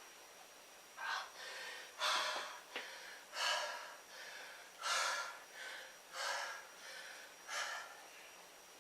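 A man breathing hard through the mouth, about seven heavy breaths roughly a second apart: winded, recovering from a hard set of push-ups.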